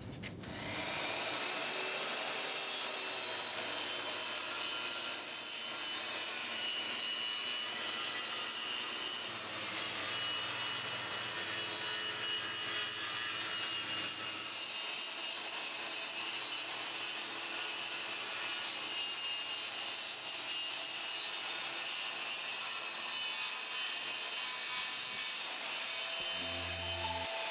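Makita 5903R 235 mm circular saw starting about a second in and running steadily as its blade rips through a wood sheet at a 45° bevel.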